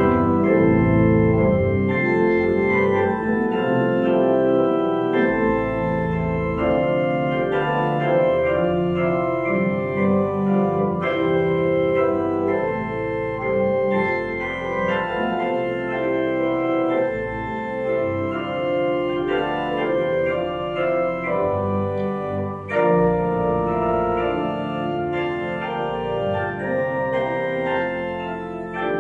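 Two-manual church organ playing slow, sustained chords that change every few seconds.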